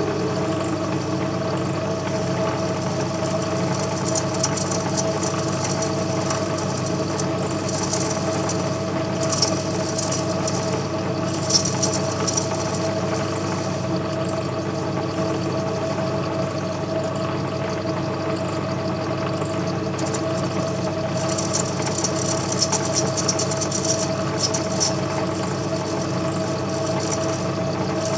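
Myford Super 7 lathe running steadily with a constant hum. The tool cutting a relief groove in the spinning workpiece adds bursts of high, scratchy cutting noise a few seconds in, around the middle, and again later.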